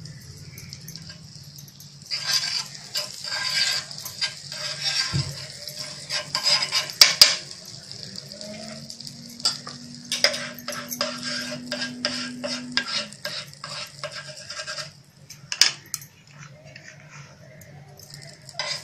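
Butter sizzling as it melts and foams on a hot nonstick tawa over a low gas flame, with a steel spoon clicking and scraping against the pan as it spreads the butter around. The sizzle starts about two seconds in.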